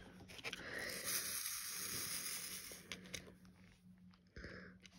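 Small resin diamond-painting drills rattling and pattering in a plastic sorting tray, for about two seconds, followed by a short scrape near the end.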